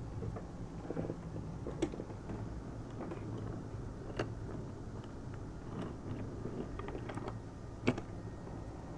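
Toy train car handled on a wooden track: a steady low rumble with a few sharp clicks, about two, four and eight seconds in, as the wheels and body knock against the track.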